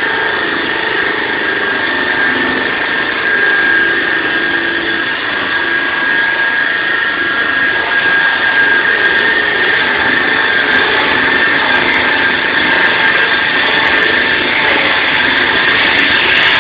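Concrete saw running steadily: a loud, constant high whine over a harsh rushing noise, growing a little rougher in the second half.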